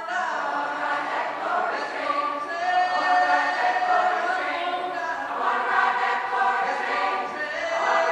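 A female soloist singing a gospel song through a handheld microphone, with a large mixed choir singing behind her.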